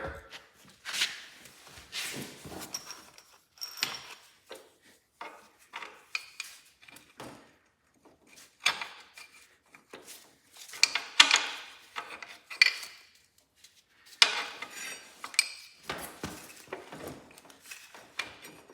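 Irregular metal clinks, taps and scrapes as a mounting bolt is fitted by hand into a garden tractor's transmission and frame.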